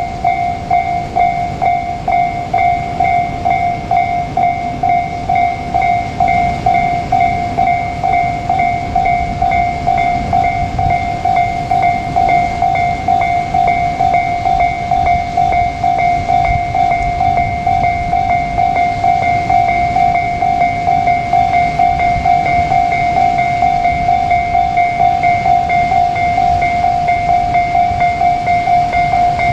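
Japanese level-crossing warning bell ringing in an even, fast repeating ding throughout. Under it is the low rumble of JR Kyushu 787-series express trains running past the crossing.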